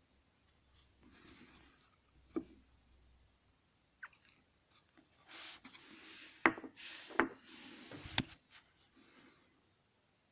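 A homemade wood-lathe chisel scraping against wood in short, intermittent strokes. The scraping is loudest in the second half, where a few sharp ticks stand out.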